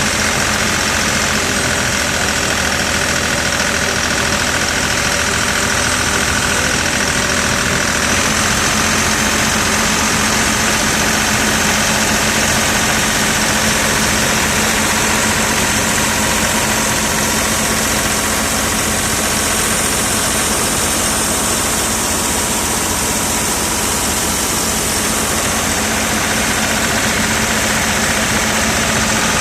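Excavator diesel engine running steadily at a constant speed, with a high whine over the engine note. Its pitch steps up slightly about eight seconds in.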